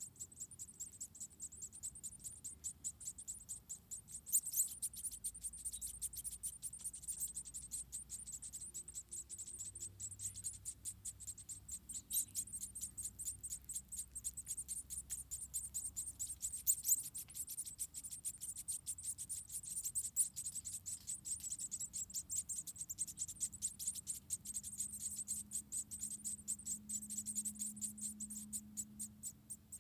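Insects chirping in a fast, even run of high-pitched pulses that keeps on steadily, with a faint low hum coming in near the end.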